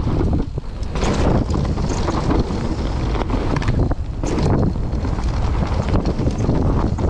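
Wind buffeting the microphone over the rumble and rattle of a mountain e-bike's knobbly tyres on a dirt trail, with sharp knocks as the bike lands off a wooden drop about a second in and hits bumps further along.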